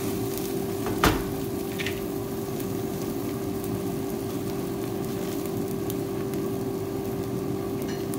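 Eggs and diced salami sizzling in a nonstick frying pan, with a steady hum underneath. A single sharp knock about a second in.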